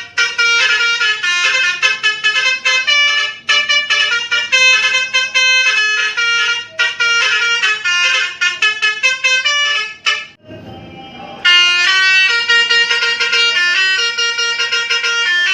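Basuri telolet multi-trumpet musical horn playing a rapid melody of bright horn notes. The tune breaks off briefly about ten seconds in, then a quicker repeating pattern of notes follows.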